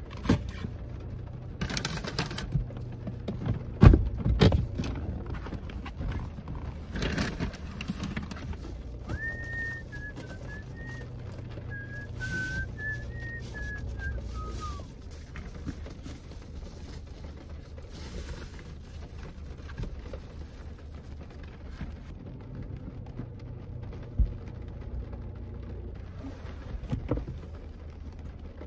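Knocks, thumps and rustling from someone moving around the back of a car and fitting reflective window covers, the loudest thump a few seconds in, over the steady low hum of the idling engine. About a third of the way in, a short wavering run of whistled notes.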